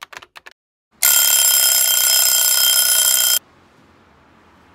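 A few quick light clicks, then a loud alarm bell ringing steadily for about two and a half seconds and cutting off suddenly.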